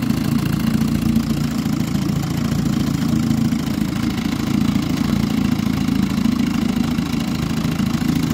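1960 Johnson 10 hp Sea-Horse two-stroke twin outboard motor idling steadily, its lower unit churning the water in a test barrel.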